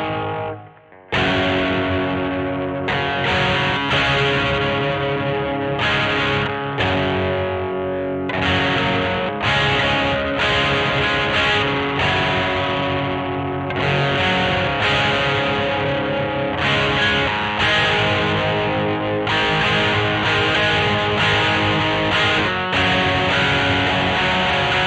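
Squier Vintage Modified Jaguar electric guitar played with distortion: chords struck every second or two and left to ring, with a brief muted pause about a second in.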